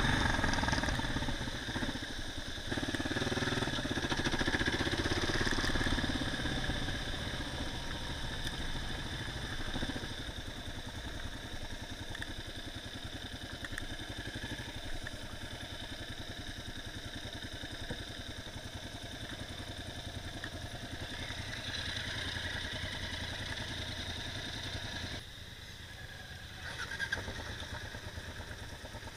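Motorcycle engine heard from the bike's own onboard camera, running steadily at low speed, quieter after the first ten seconds or so.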